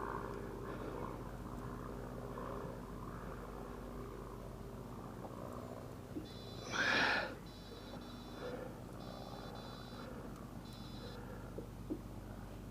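Boat's outboard motor idling with a steady low hum, and about seven seconds in a brief loud rush of noise.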